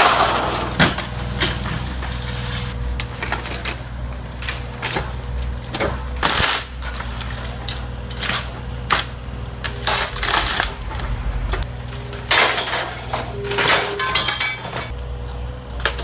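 John Deere compact excavator tearing down a timber-framed house: its engine runs steadily while wood cracks and splinters and debris crashes down again and again.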